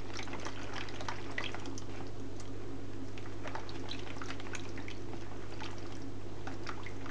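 A hand stirring water into flour in a plastic bowl to dissolve the yeast: many small irregular wet splashes and squelches over a steady low hum.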